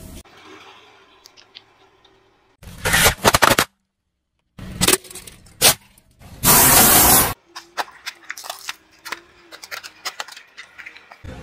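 Objects being crushed under a car tyre on asphalt, in several short cut-together clips: sharp cracks and crunches of things breaking, a loud hiss about a second long around the middle, and scattered small clicks and pops near the end.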